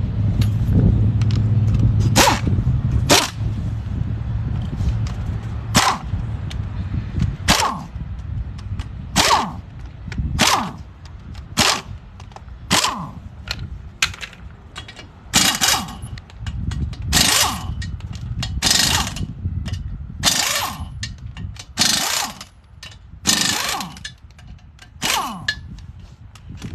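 Impact wrench run in short bursts, about fifteen of them a second or two apart, spinning off the lug nuts to take the wheel off the truck.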